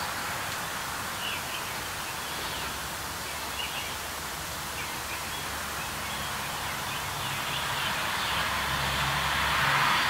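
Steady background noise with faint, scattered bird chirps. A low hum builds near the end.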